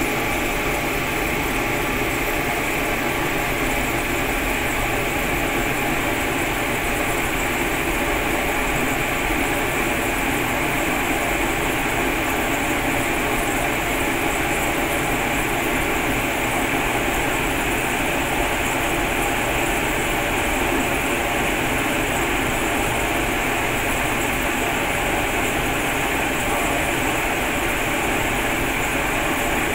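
Cremation furnace running, its burners and fans making a steady, even rushing noise that does not change, about five minutes into burning a coffin.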